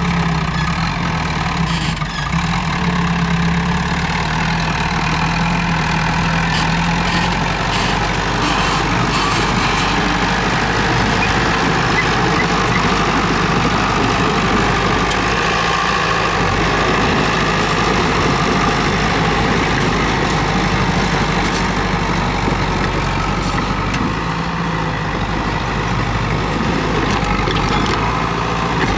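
Komatsu D31P crawler bulldozer's diesel engine running steadily, its note changing about seven seconds in, with scattered short knocks.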